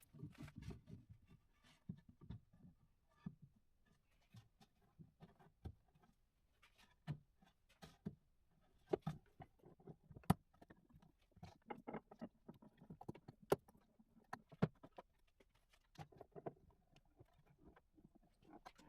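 Scattered faint knocks, clicks and soft thumps from spruce boards being handled and glued together edge to edge, with a few sharper clacks of wood on wood.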